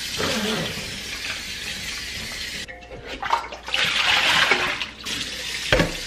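Kitchen faucet running onto a frozen beef roast in a stainless-steel pressure-cooker pot in the sink; partway through the pot is tipped and rinse water pours out into the sink with a louder rush. A single knock near the end.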